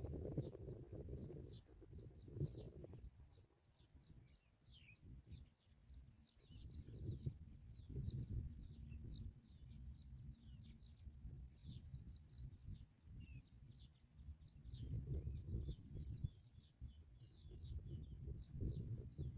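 Small birds chirping: many short, high chirps in quick succession throughout, over a faint low rumble.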